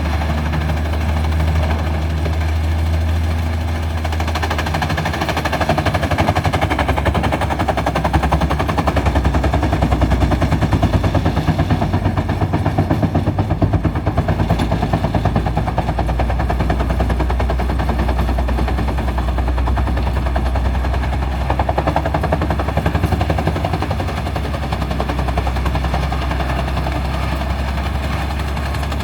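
Industrial wood chipper chipping logs with a rapid, continuous clatter, over the steady run of heavy diesel engines. It is somewhat louder through the middle of the stretch.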